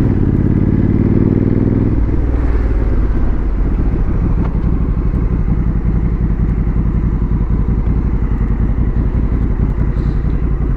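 Honda CRF1100L Africa Twin's parallel-twin engine under way, its pitch rising for the first two seconds as it accelerates, then running steadily.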